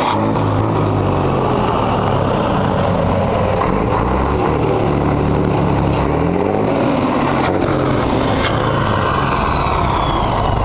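Scania 113H truck's inline-six diesel engine being revved. Its pitch dips and then climbs around the middle, and a high whine falls in pitch near the end.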